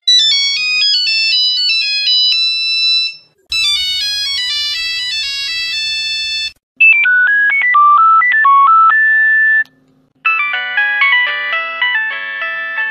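Four Nokia mobile-phone ringtones play in turn, each a short electronic melody about three seconds long with a brief gap between them. They sound different from one another: the first two are bright and beeping, the third is a plainer single-note tune, and the last is fuller, with several notes at once, and dies away near the end.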